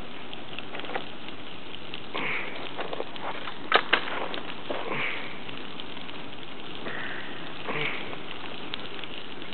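Large fire burning a dishwasher: a steady rush of flame with scattered sharp crackles and pops, two louder pops a little under four seconds in.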